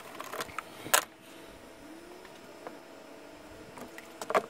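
Scattered light clicks and taps of small hand tools handled against a PVC pipe and table, the sharpest about a second in, then a quiet stretch, with more clicks near the end.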